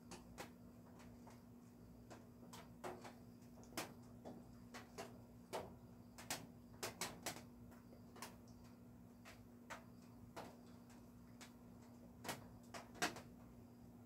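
Raindrops striking the studio roof: sparse, irregular sharp ticks, one louder than the rest near the end.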